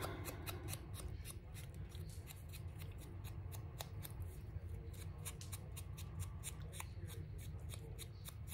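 Ink dauber dabbing and rubbing ink onto the edges of paper tags, making quick, faint scratchy taps about four a second.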